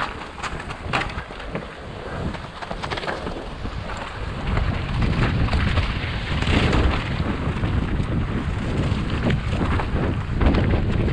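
Wind buffeting a helmet-mounted camera's microphone on a fast mountain bike descent, with the tyres and bike rattling and crunching over loose rock and scree. The wind rumble grows heavier about four seconds in as the speed picks up.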